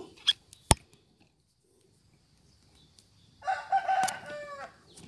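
A rooster crows once, a call of a little over a second about three and a half seconds in that falls in pitch at its end. A single sharp click comes under a second in.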